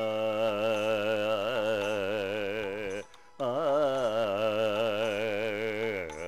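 A man singing a wordless classical-style vocal passage, holding two long notes with steady vibrato that slowly fall in pitch, with a brief breath between them about three seconds in.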